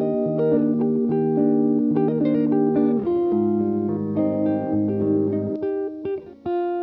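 Background music: plucked guitar melody over held bass notes, briefly dropping out near the end.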